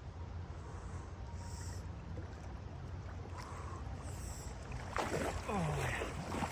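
Water sloshing in a cold plunge tub as a person shifts about in it, louder and busier near the end.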